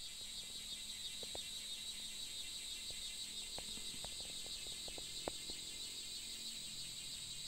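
A steady chorus of chirring insects, with a few faint scattered clicks.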